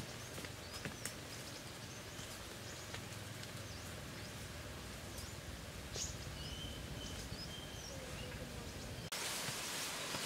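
Outdoor ambience with scattered bird chirps and short calls over a low steady background, including a brief steady whistled call about two-thirds of the way through. About nine seconds in the background cuts abruptly to a louder, even hiss.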